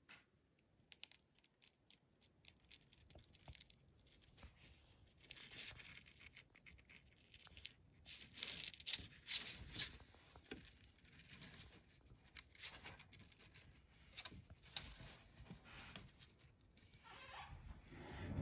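Faint, irregular scratching and rustling scuffs, sparse at first and busier after a few seconds: a Shih Tzu puppy's paws and claws scuffling on the floor as it shifts about.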